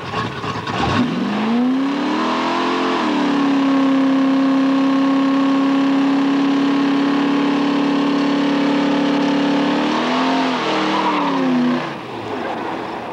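A rear-wheel-drive coupe doing a burnout. The engine revs up over about two seconds and is held at steady high revs for about seven seconds while the rear tyres spin and smoke. Then it dips, revs up once more and falls away as the car pulls off.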